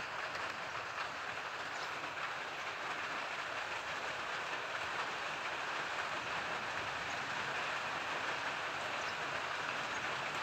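Steady, heavy rain falling, an even unbroken hiss.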